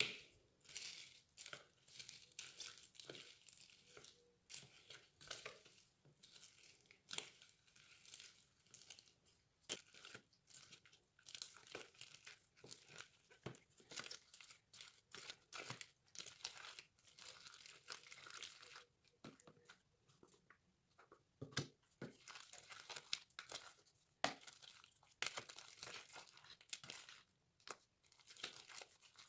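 Slime being squished and stretched by hand: faint, irregular sticky crackles and snaps.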